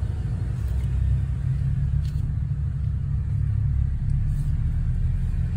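Jeep engine running slowly, heard from inside the cabin as a steady low rumble.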